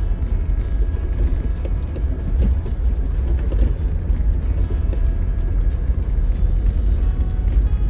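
Off-road vehicle driving slowly over a rough dirt trail, heard from inside the cab: a steady low rumble of engine and tyres with small knocks and rattles as it rolls over bumps.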